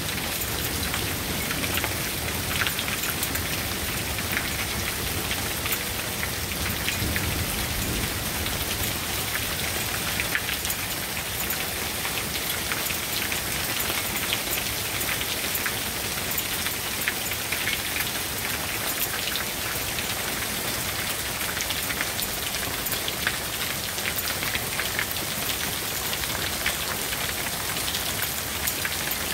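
Hail and rain falling on a patio, pool and lawn: a dense, steady patter full of sharp ticks from small hailstones striking the concrete and the patio chairs.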